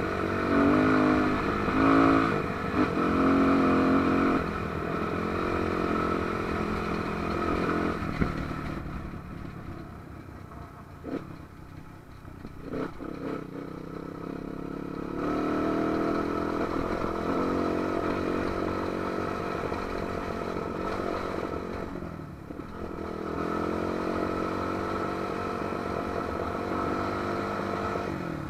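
AJP trail motorcycle's engine running under a rider on a dirt track: revving and climbing in pitch for the first few seconds, easing off and quieter for several seconds midway with a couple of short knocks, then pulling steadily again.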